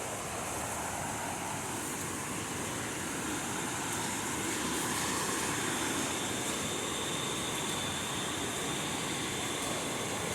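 Steady rush of water from a nearby jungle stream or waterfall, an even hiss with no breaks.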